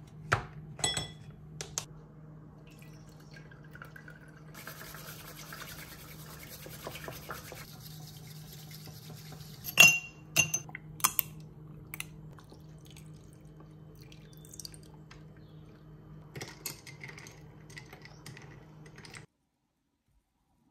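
Dishes and glass clinking in sharp, ringing knocks, loudest a little before halfway, with a few seconds of running or pouring water about five seconds in. A steady low hum runs underneath, and the sound cuts off just before the end.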